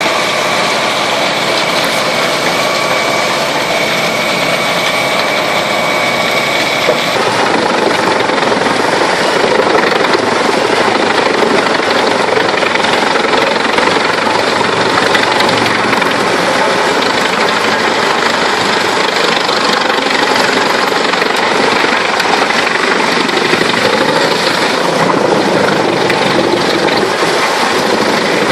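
Large wood chipper driven by a 360 hp diesel engine, running loud and steady. About seven seconds in, a thin whine drops out and the sound turns rougher and a little louder.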